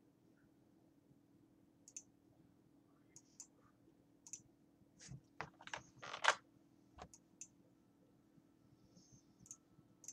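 Scattered clicks of a computer mouse and keyboard, with a brief cluster of louder clicks and rustling about five to six seconds in, over a faint steady hum.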